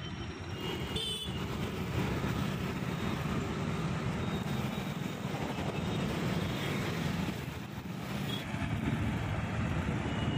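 Road traffic: motorbikes and other vehicles running past on a city road, a steady rumble of engines and tyres.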